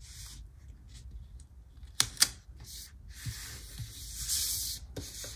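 Paper and sticker sheets being handled on a desk. Two sharp clicks come close together about two seconds in, followed by a few seconds of hissy paper rubbing.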